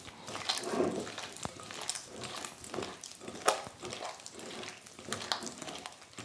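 Hands squeezing and kneading cubes of butter with sugar and raw egg in a glass mixing bowl for shortcrust dough: irregular wet squishing and small clicks, with one sharper tap about three and a half seconds in.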